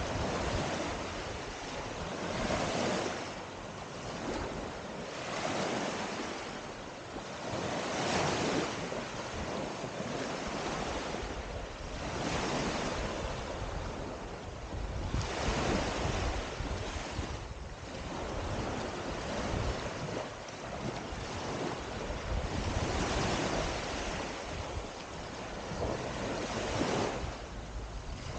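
Small waves breaking and washing up a sandy beach, one swell of surf every two to three seconds. Wind buffets the microphone with a low rumble at times.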